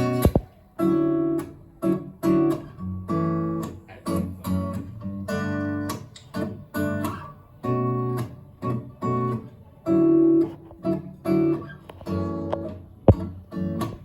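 Acoustic guitar strumming chords in a steady rhythm. A sharp click comes just after the start and a louder one near the end.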